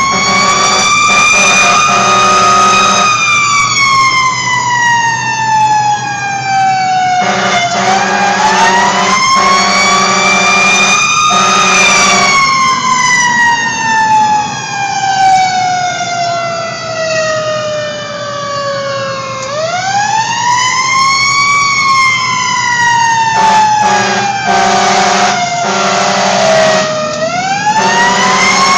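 Fire engine siren wailing: the pitch rises quickly, then falls more slowly, about three and a half times. Several-second horn blasts sound over it at the start, around eight to twelve seconds in, and near the end.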